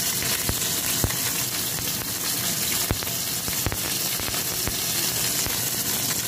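Whole fish frying in hot oil in a wok: a steady sizzling hiss with several sharp pops of spattering oil scattered through it.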